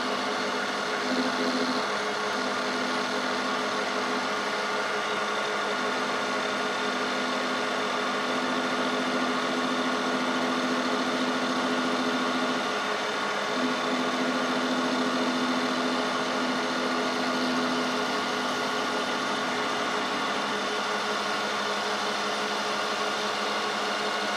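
Metal lathe running steadily while a carbide insert takes a light facing cut across a stainless steel bolt. Under the even machine hum, a low tone comes and goes through most of the cut and fades out in the last few seconds.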